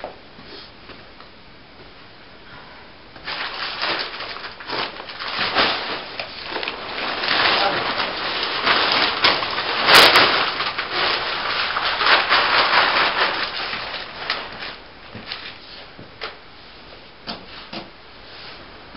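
Loose wood shavings rustling and crackling as they are shaken out and spread with a shavings fork for a stable bed, starting about three seconds in and dying away near the end, with one sharp loud crack about ten seconds in.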